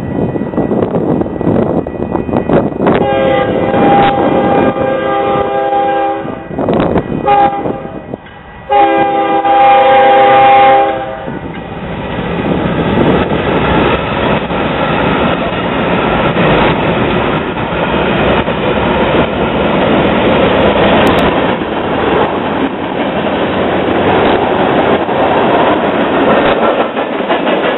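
Freight train diesel locomotives sounding a multi-note air horn as they approach: a long blast, a brief one, then a final long blast, the loudest. The locomotives then pass and the train's cars roll by with steady wheel-on-rail noise.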